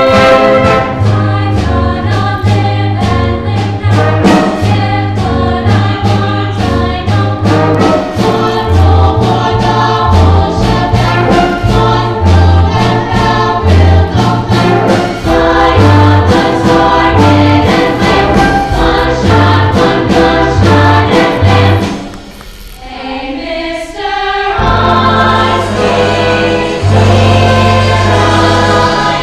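Women's choir singing an upbeat show tune with instrumental accompaniment underneath. About 22 seconds in the music drops to a brief quieter passage, then comes back in full.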